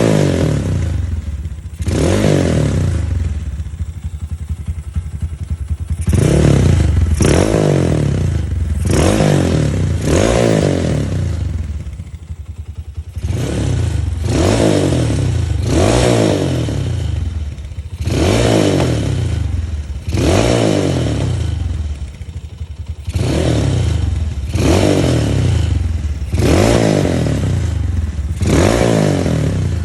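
Honda Mega Pro single-cylinder motorcycle engine running through a gutted (baffles drilled out) GL100-style aftermarket muffler. The throttle is blipped over and over, each rev rising and falling in pitch about every second or two, between short stretches of idle.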